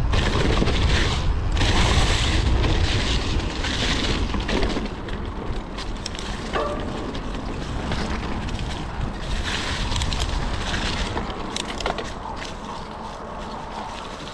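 Wind buffeting an action camera's microphone while riding a mountain bike, over tyre and trail noise with scattered small rattles and ticks. Loudest for the first few seconds, then easing off.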